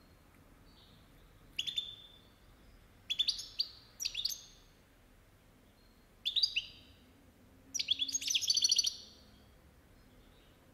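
Caged European goldfinch calling in five short bursts of quick, high, falling twittering notes, the last and longest near the end.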